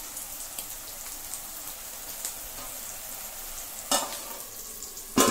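Prawn roast sizzling in a pot as it is stirred with a wooden spatula, cooking down until the water dries off and the oil separates. Near the end a metal lid clanks onto the pot twice, the second time louder and ringing.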